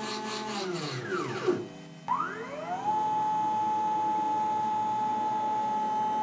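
CNC router's stepper motors whining through a jog move. The several-pitched whine glides down to a stop about a second in, then rises as the next move speeds up, holds one steady pitch for about three and a half seconds, and begins gliding down again at the end as the axis slows.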